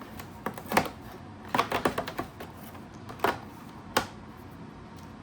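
Sharp clicks and taps of cardboard and plastic packaging being handled as a door of a cardboard advent calendar is opened. There is a quick run of clicks about one and a half seconds in, then two single louder clicks near the end.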